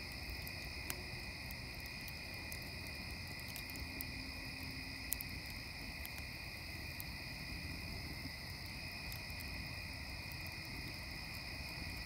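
Wood fire crackling in a fire pit, with scattered sharp pops; the loudest come about a second in and about five seconds in. Under it runs a steady high-pitched chorus of tree frogs.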